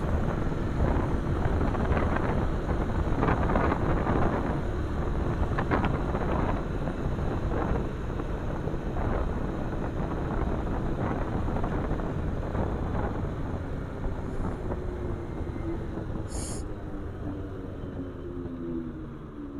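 Wind rushing over the microphone on a Bajaj Pulsar 220F ridden at road speed, with its single-cylinder engine running underneath. The rush slowly eases as the bike slows, and over the last few seconds the engine note falls as it decelerates.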